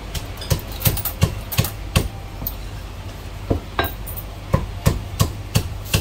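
Chinese cleaver chopping a piece of marinated poultry on a thick round wooden chopping block: a run of sharp chops about three a second, a pause of over a second, then another run of chops.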